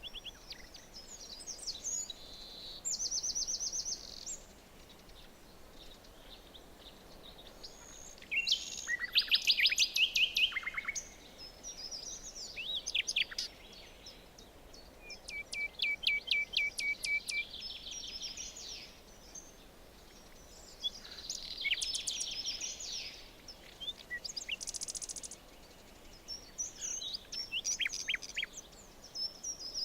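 Songbirds singing, several different song phrases a few seconds apart with quiet gaps between, some as fast runs of evenly repeated high notes; the loudest phrase comes about nine seconds in. A faint steady background hiss lies under them.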